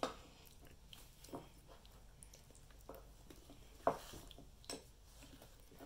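Faint scattered taps, scrapes and squishes of flour-salt-water dough being mixed in a bowl, with a sharper knock just before four seconds in.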